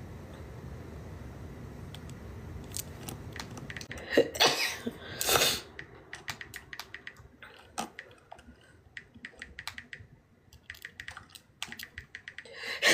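A woman sneezing twice in quick succession as part of a sneezing fit, about four and five seconds in. Small scattered clicks and rustles follow.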